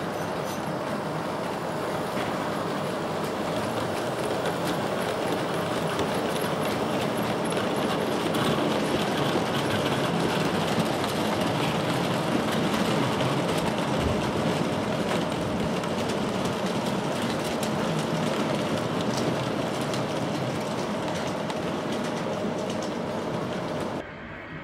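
O gauge model diesel locomotive and coal hopper wagons running on the track: a steady rolling rumble with a faint even hum and scattered light clicks from the wheels. The sound drops off suddenly near the end.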